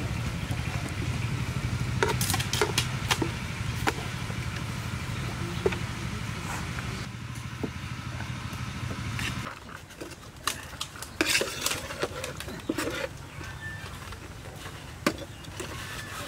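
Metal spoons scraping and clinking against a large metal tray and foam takeaway boxes as fish curry is ladled out, with scattered sharp clinks. Under it a steady low motor hum runs, and it stops about nine and a half seconds in.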